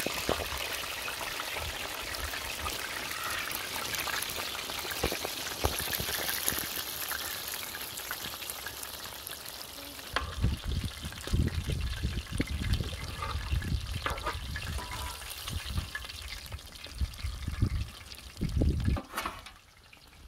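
Baby stingrays frying whole in hot oil, a steady sizzle that weakens about halfway through. Irregular low thuds and rumbles set in from about halfway.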